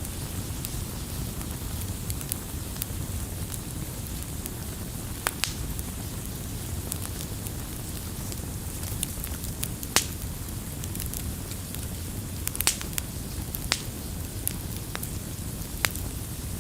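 Wood campfire burning: a steady low rumble of flames under scattered sharp crackles and pops of burning wood, the loudest pop about ten seconds in.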